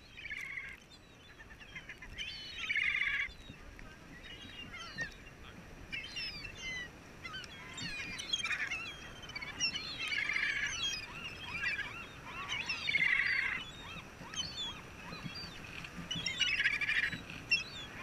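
A flock of gulls calling as they crowd in on scattered food: loud bouts of squawking every few seconds, with many short cries in between.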